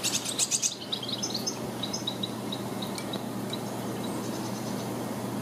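Small birds chirping: a quick burst of high chatter, then a string of short high chirps that thin out after about three seconds, over a steady low background hum.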